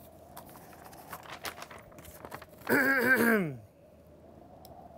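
Light paper crinkling and clicking as a paper clue is handled, then a man's short wordless vocal sound, falling in pitch, about three seconds in.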